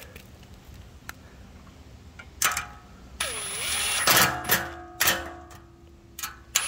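Cordless impact driver running a hex bolt into a steel workbench frame: a short whirr as the bolt spins in, then a few sharp bursts of hammering as it snugs down, with the steel ringing after each. Quiet for the first couple of seconds before the driver starts.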